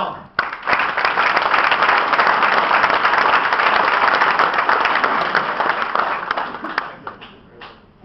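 Audience applauding, starting about half a second in and dying away near the end with a few last scattered claps.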